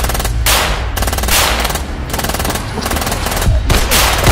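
Rapid rifle fire in long, dense bursts, over background music with a steady low bass.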